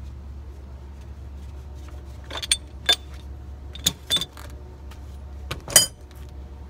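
Metal hand tools and parts clinking against the steel front suspension: a handful of sharp metallic clinks with a short ring, the loudest near the end, over a steady low hum.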